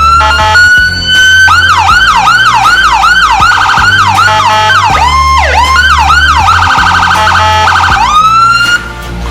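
Whelen HHS3200 electronic siren through a Whelen SA314A speaker, stepping through its tones. It starts with a rising wail, then plays quick repeating yelp sweeps at about three a second and bursts of a very fast warble, and it rises once more near the end.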